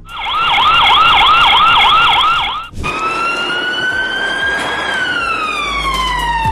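Electronic emergency-vehicle siren: a fast yelp of about four sweeps a second, which cuts off just under three seconds in, followed by a slow wail that rises and then falls.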